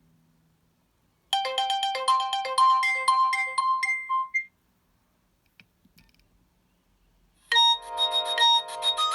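Nokia 6230i mobile phone ringtones playing through the phone's speaker. A short melody of several notes at once plays for about three seconds, starting about a second in. After a pause of about three seconds, a different ringtone starts near the end.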